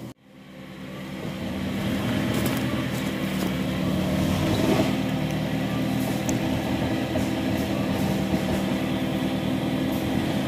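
Off-road 4x4 vehicle's engine running steadily, fading in after a sudden cut at the start.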